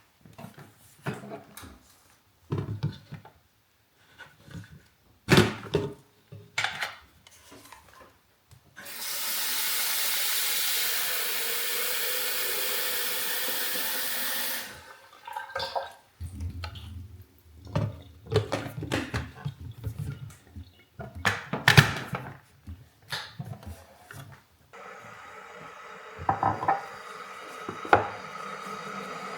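Kitchen handling sounds: dishes and utensils clinking and knocking, then a tap running steadily for about six seconds, then more clinks and knocks. Near the end a steady hum starts and continues.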